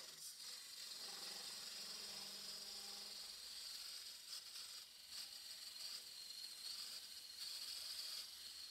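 Woodturning lathe spinning a piece of ash while a tool or abrasive works the surface, giving a steady hiss with a few brief scrapes. A low motor hum fades out about three seconds in.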